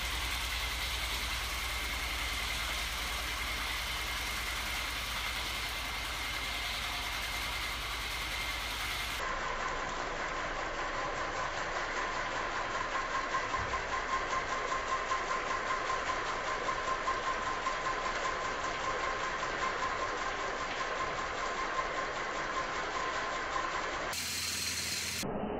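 Homemade magnet-coupled crankshaft machine running on its small 12-volt DC electric motors: a steady motor whine over a fast, even mechanical clatter. The whine is lower in pitch from about nine seconds in.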